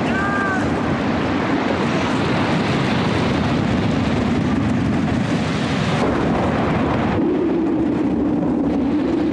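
Stormy sea: heavy surf and wind making a loud, continuous rushing noise over a low, steady drone. There is a brief high cry about half a second in. About seven seconds in the hiss thins and the drone rises slightly.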